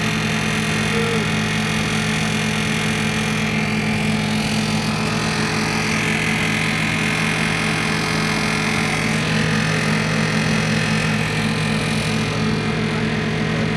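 Suzuki Samurai 4x4's engine running at steady revs, its pitch holding even throughout.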